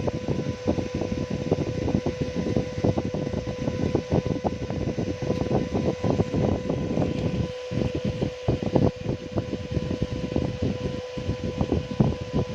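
A small fan running with a steady hum, over dense, irregular crackling and rustling noise.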